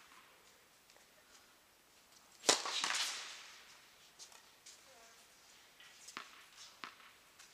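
Tennis ball impacts during a doubles point: a few sharp pops, with one much louder crack about two and a half seconds in that trails off over about a second.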